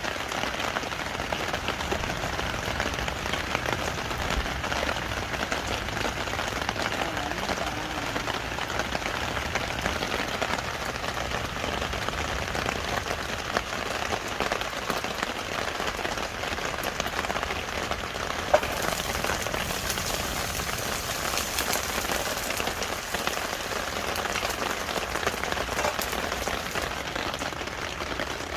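Rain pattering steadily, with one sharp click about two-thirds of the way through.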